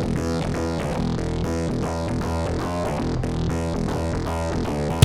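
Background music: a synthesizer or electric-piano keyboard figure repeating in quick, even notes.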